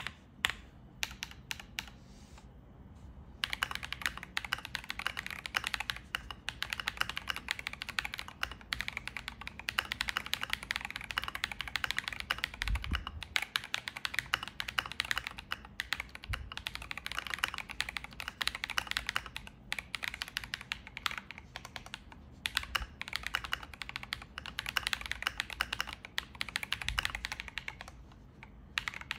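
Typing on a James Donkey A3 75% mechanical keyboard fitted with Feker Matcha V2 switches (stock pre-lubed), Holee-modded stock stabilizers and a tape mod. A few scattered keystrokes open, then about three seconds in it becomes a dense, fast run of key clacks, with brief pauses now and then.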